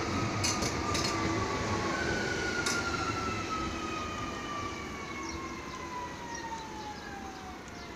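Metrovalencia series 4300 electric train pulling away, its electric drive whining in thin tones that glide steadily down in pitch over a running rumble, fading as it moves off.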